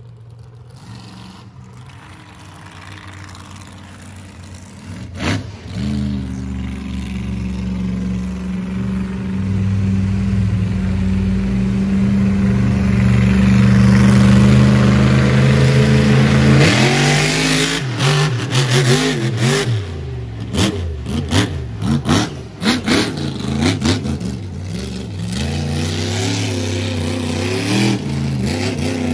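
A 1,500-horsepower competition monster truck engine running and growing steadily louder as the truck comes on. About sixteen seconds in it revs hard, then the throttle swings up and down rapidly with sharp cracks mixed in as the truck tears through the mud.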